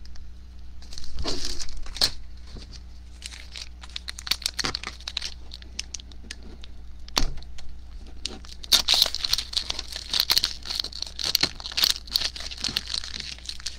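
Plastic wrapper of an Upper Deck Trilogy card pack crinkling and tearing as it is picked open by hand, the tough wrapper shredding rather than tearing cleanly. Scattered crackles, then a denser stretch of crinkling in the last few seconds.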